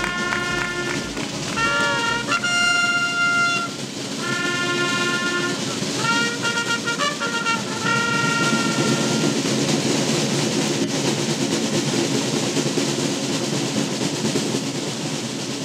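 Sardinian drum-and-trumpet band of children playing: trumpets sound phrases of held notes over continuous drumming. The trumpets stop about nine seconds in and the drumming carries on.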